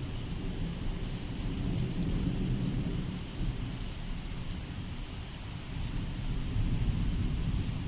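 Steady rain falling, with a low rumble underneath that swells about two seconds in and again near the end.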